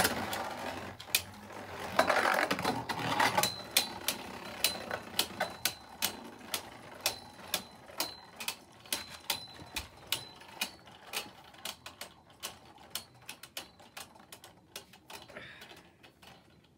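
Two Beyblade Burst spinning tops battling in a plastic stadium, clacking against each other in sharp clicks a few times a second over a faint whir. The clicks grow fainter and sparser near the end as the tops lose spin.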